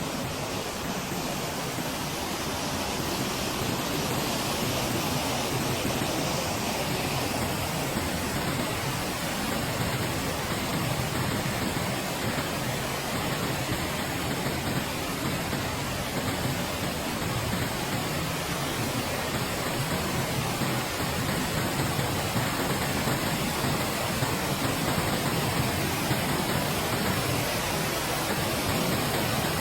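Pistyll Rhaeadr waterfall's steady rush of falling water, a dense even hiss that grows a little louder over the first few seconds.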